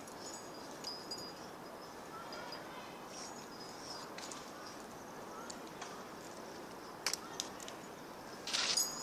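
Outdoor ambience: a steady background hiss with faint, scattered bird chirps, a few sharp clicks about seven seconds in, and a short louder burst of noise near the end.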